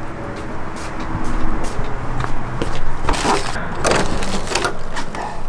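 Steady low rumble of traffic, then a run of sharp clicks and clacks about three to four seconds in as a front door's metal lever handle and latch are worked and the door opens.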